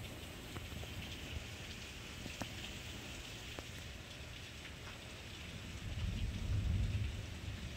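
Steady tropical-storm rain falling, with a few sharp drops ticking close by and a low rumble that swells about six seconds in.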